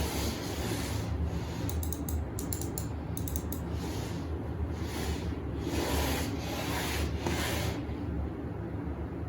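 Repeated rubbing strokes, roughly one a second, with a quick patter of light clicks about two seconds in.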